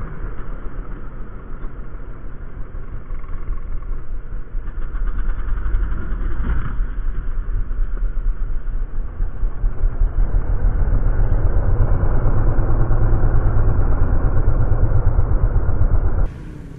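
Motorcycle engine running under way on a loose dirt track, recorded on board, with a steady low rumble that grows louder about ten seconds in. The sound changes abruptly just before the end.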